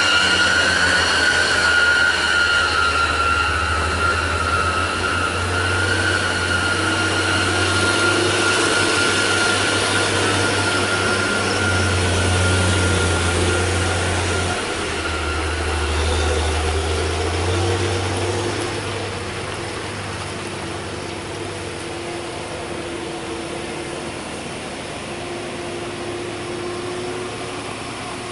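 Heavy truck's diesel engine labouring up a steep grade, with a strong low engine note that changes pitch a few times. A high whine rides over it for the first half, and the sound eases off somewhat in the last third.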